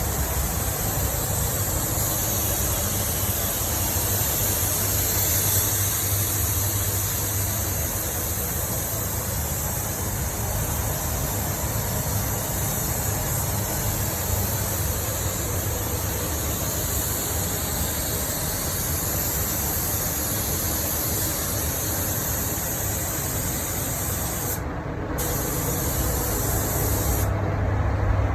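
Pneumatic spray gun spraying paint in a steady hiss over a constant low hum of booth fans or compressor; the spray stops briefly twice near the end as the trigger is released.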